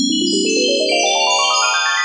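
A musical sound effect: a fast rising run of ringing, bell-like synth notes, about ten a second, each note left to ring so they pile up, with high chiming tones held above.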